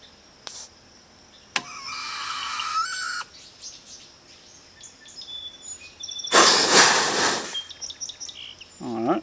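Compressed air filling a Benjamin Bulldog M257 PCP air rifle's reservoir: a click, then a hiss with a faint whistle for about a second and a half that stops with another click. Later comes a louder, shorter rush of air, as from the fill line being bled. Birds chirp in between.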